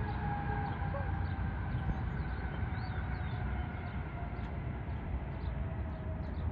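Jet airliner engines running, a low rumble with a whine that slowly falls in pitch. Birds chirp faintly.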